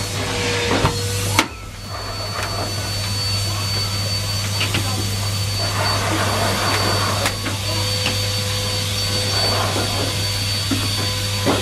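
Numatic Henry Pet vacuum cleaner running steadily with a whining hum, its tool knocking sharply several times. After a loud knock about a second and a half in, the sound drops and then builds back up.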